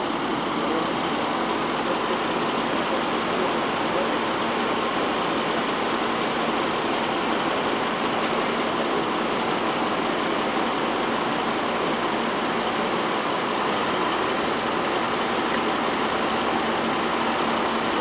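A vehicle engine idling steadily under an even wash of outdoor noise, with a constant low hum.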